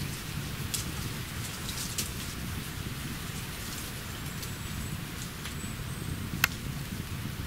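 Steady low rumble of wind buffeting the microphone, with faint scattered crackles and one sharp click about six and a half seconds in.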